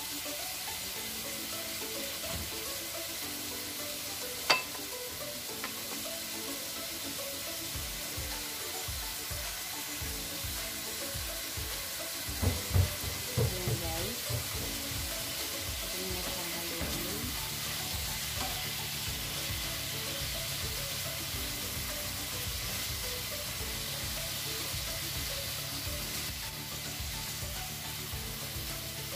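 Marinated pork pieces sizzling as they fry in a little oil in a nonstick pan, stirred with a wooden spatula while they brown. There is one sharp tap about four seconds in, and a short run of knocks of the spatula against the pan partway through.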